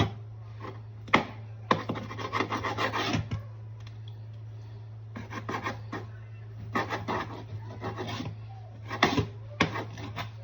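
Sharp kitchen knife sawing through raw chicken breast against the bottom of a pan, in bursts of rasping, scraping strokes separated by short pauses. A steady low hum runs underneath.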